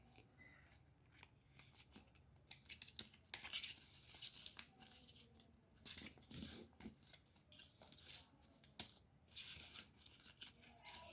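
Sheet of craft paper being handled and folded, with faint, scattered rustles and scrapes.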